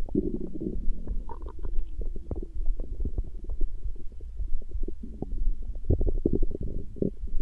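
Stomach growling: a steady low rumble with many small gurgles and pops, swelling into longer gurgles at the start and again near the end.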